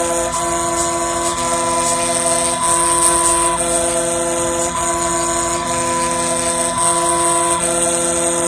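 Small desktop CNC mill cutting down a phone IC: its stepper motors whine in steady tones that jump to a new pitch about once a second as the axes change speed and direction, over the constant high whine of the spindle.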